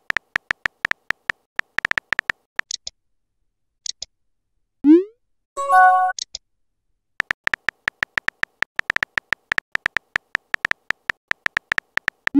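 Simulated phone keyboard clicks, fast and even, as two text messages are typed out, each followed by a short rising whoosh as the message is sent. A brief chime sounds a little before halfway.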